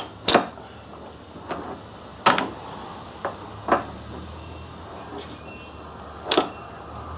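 Sharp metal clicks and knocks, about six separate ones, as a steel BXA tool holder is set on a quick-change tool post and the post's locking handle is swung to lock it on.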